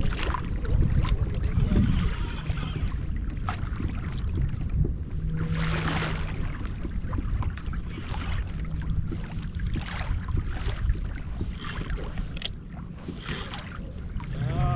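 Kayak being paddled on open ocean water: irregular paddle splashes every few seconds over a steady low wind rumble on the microphone.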